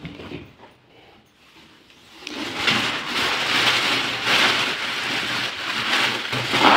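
Clear plastic protective bag crinkling and rustling as it is pulled off a large flat-screen TV, starting about two seconds in.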